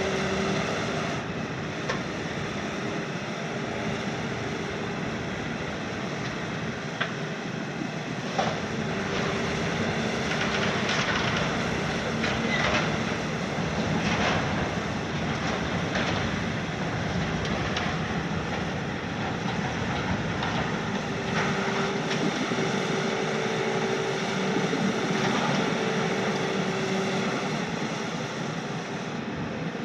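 Hitachi KMC 380 S-6 long-front demolition excavator working: steady diesel engine and hydraulic noise, with a hydraulic whine that comes and goes and a few sharp cracks of material breaking as the attachment tears at the building.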